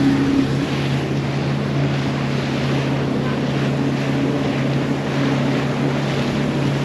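Boat's outboard motor running steadily under way at cruising speed, with wind noise on the microphone and water rushing past the hull.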